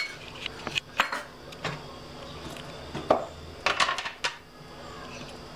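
Metal spoon clinking and tapping against a bowl several times, with a quick cluster of ringing taps about four seconds in, as chili flakes are added to softened garlic butter.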